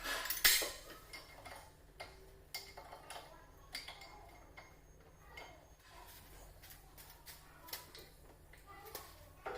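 Scattered light metallic clicks and clinks, as of tools being handled on metal, with one louder knock about half a second in.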